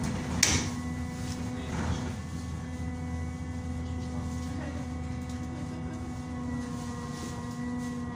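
Inside a moving AKSM-32100D trolleybus: a steady electric hum with a higher whine from the drive equipment over low road rumble, and a sharp knock about half a second in.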